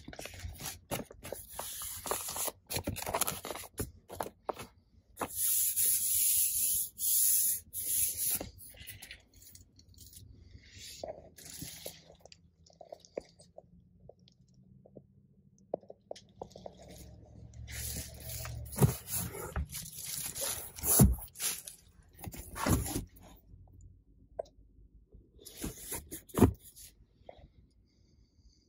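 Crinkling and rustling of clear plastic protective wrapping on new truck seats, in bursts, with a few sharp knocks and clicks from handling in the second half.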